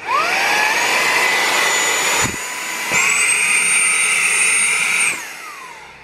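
Battery-powered brushless mini vacuum-blower switched on, its motor whine rising as it spins up. There is a knock a little over two seconds in, then the pitch steps higher near three seconds and holds. It switches off about five seconds in and winds down. The motor is straining hard while holding about 700 grams by suction.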